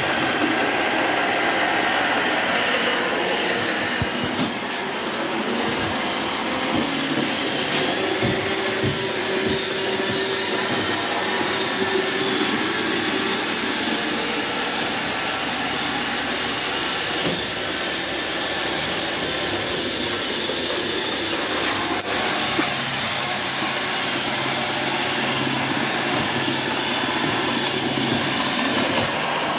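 iRobot Roomba 760 robot vacuum running, its motor and brushes making a steady, unbroken whirring noise with small shifts in tone as it works.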